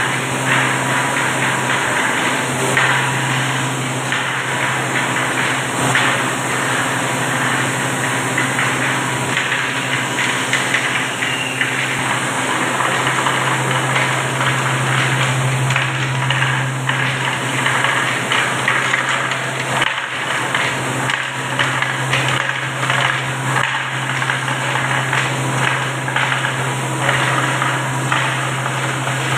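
Kraft paper machine running in the mill hall: a steady loud machine noise with a constant low hum under it and a dense rattle of small ticks and knocks.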